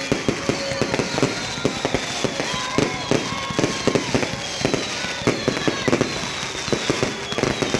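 Fireworks display: a rapid, irregular barrage of bangs and crackles, with several whistling shells falling in pitch.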